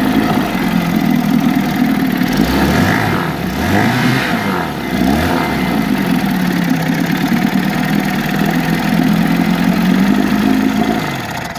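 Force 15 HP two-cylinder two-stroke outboard running in a test barrel: idling steadily, revved up and down a few times a few seconds in, then settling back to idle. It shuts off right at the end.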